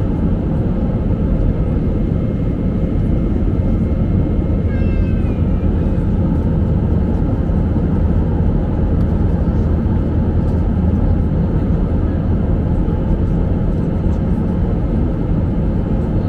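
Steady low cabin noise of a jet airliner in flight, from its engines and the airflow over the fuselage. About five seconds in, a brief high wavering sound, like a short cry, rises over it.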